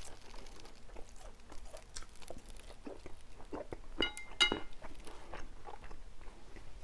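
Close-miked chewing and wet mouth sounds of someone eating, with two short ringing clinks about four seconds in.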